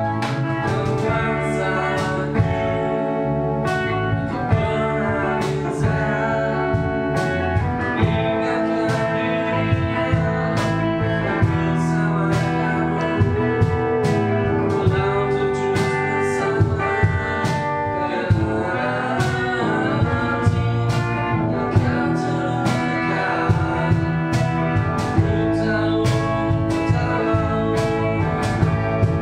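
Music with guitar over a steady beat and a singing voice.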